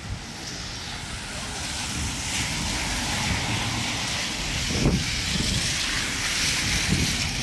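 Car tyres hissing on a rain-soaked road as cars drive past. The hiss builds steadily as a car comes close, with wind rumbling on the microphone.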